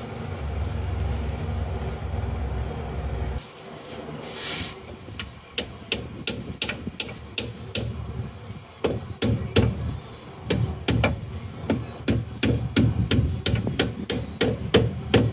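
Hammer tapping a new pinion seal into a 1999 Chevrolet Silverado's front differential: quick sharp blows at about three a second, starting about five seconds in. Before that, a low steady hum that stops about three seconds in.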